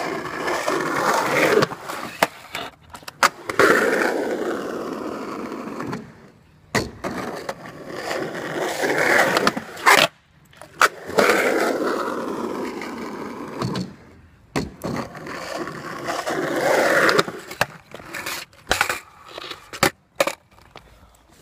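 Skateboard on 53 mm Force urethane wheels rolling over concrete in several runs, each growing louder and then fading. The rolling is broken by sharp clacks of the board hitting the concrete.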